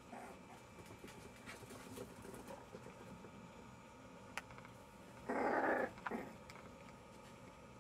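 Jack Russell Terriers at play: one short, loud, rough growling bark about five seconds in, then a brief second one, over faint scattered ticks of paws on a wooden floor.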